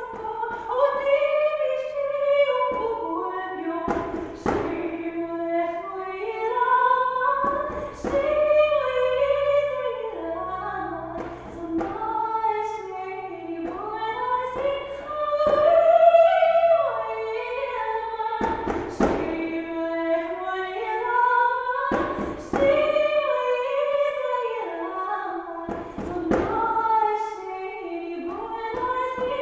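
A woman singing a slow melody solo while accompanying herself on a djembe, with single drum strikes every few seconds.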